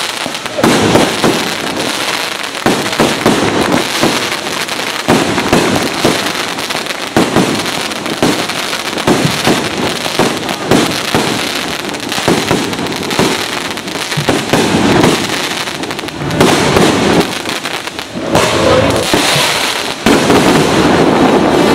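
A long string of firecrackers going off, rapid irregular cracks with a brief lull near the end.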